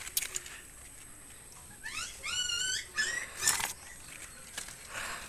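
An animal call: a quick run of about five short rising yelps around two seconds in. A loud noisy rustle follows about a second later.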